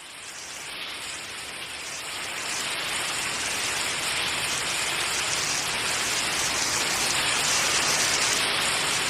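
Steady rushing of falling water, fading in from silence and slowly growing louder.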